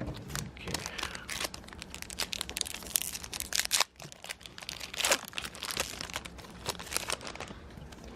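Foil wrapper of a Pokémon trading card booster pack crinkling and tearing as it is opened: a dense run of crackles, with a short pause about four seconds in.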